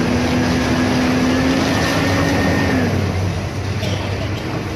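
Hydraulic excavator's diesel engine and hydraulics working hard while demolishing a wood-frame building, with a whining tone that falls away about three seconds in.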